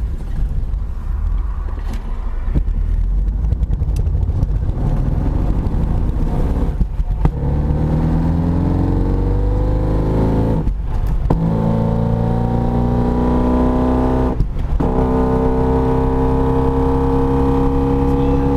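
A 1993 BMW E36 325is driving: a low rumble at first, then a pitched drone that rises as the car picks up speed, breaking off briefly three times. The drivetrain noise includes the rear differential rubbing against the body because of a broken diff mounting bolt.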